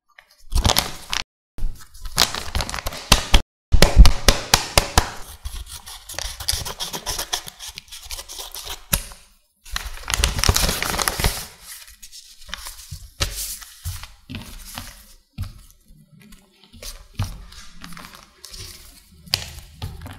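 Handmade paper blind bag with a glossy, tape-covered finish being handled and opened. The paper rustles in irregular bursts with sharp crackles, loudest about four seconds in and again around ten to twelve seconds, then lighter rustling as the paper cutouts are handled.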